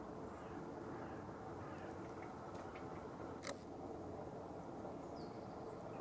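A few faint, sharp clicks from a great spotted woodpecker on a tree branch, the loudest about halfway through, over a steady low background rumble. A short falling high note comes near the end.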